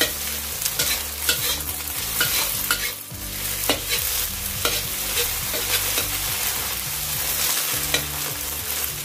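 Eggs sizzling in hot oil in a wok as a spatula scrambles them, with frequent irregular scraping and tapping strokes against the pan.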